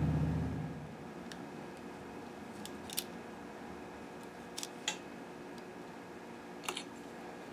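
A low hum dies away within the first second, then a handful of light, sharp clicks and taps from small parts and tools being handled at a workbench.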